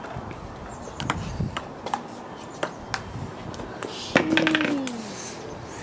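Ping-pong ball clicking back and forth off the paddles and the table in an irregular rally of sharp taps. About four seconds in, a person lets out a drawn-out cry that falls in pitch.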